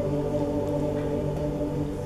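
Mixed choir holding a sustained chord, cutting off right at the end.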